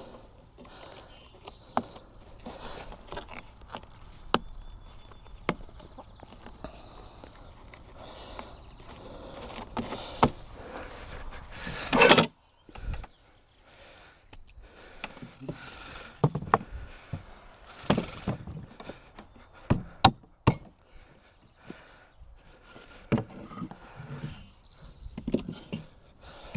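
Scattered knocks, thumps and clatter from hands working a homemade hay-bale baler as hay and soil are compressed in it, with one loud bang about twelve seconds in.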